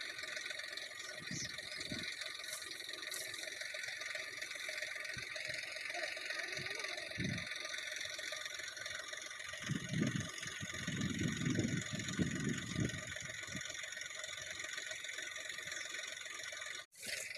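New Holland tractor's diesel engine idling steadily, with irregular low thumps between about ten and thirteen seconds in. The sound drops out for a moment near the end.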